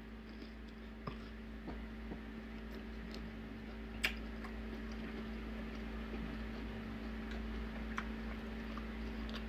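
Quiet eating: a man chewing a mouthful of shrimp and grits, with a few short clicks of a plastic fork, the sharpest about four seconds in. A steady low hum runs underneath.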